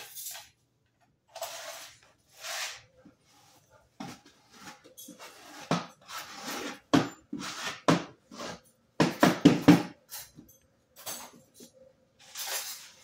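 Irregular knocks, scrapes and clatters of hard pieces being handled, sparse at first and busier and louder from about four seconds in: marble stone veneer panels and tools being worked while a panel is set in adhesive.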